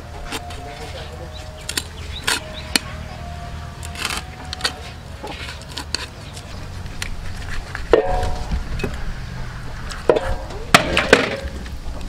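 A cleaver cutting into a whole plucked duck on a metal tray: irregular sharp knocks and clicks of the blade.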